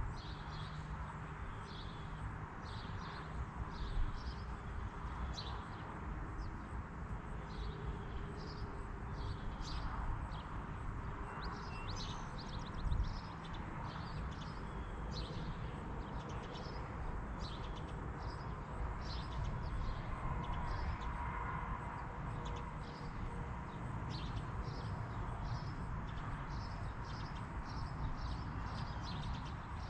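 Small birds chirping over and over, short high chirps about once or twice a second, over a low, steady outdoor rumble.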